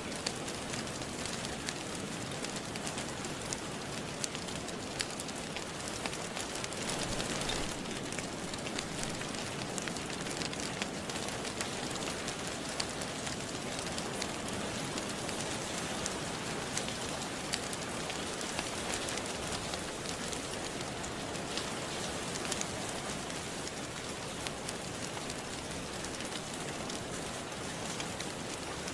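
Steady rain mixed with a crackling wood fire: an even hiss with scattered sharp crackles and drips throughout.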